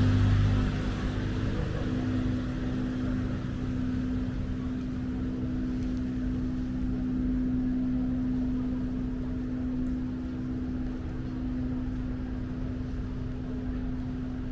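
A steady mechanical hum holding one constant pitch, with a low rumble beneath it.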